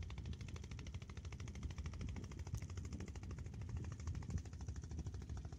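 A small engine running steadily with a rapid, even chugging.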